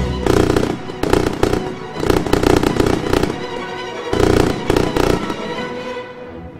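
Aerial fireworks crackling in several rapid bursts of pops, with music playing under them.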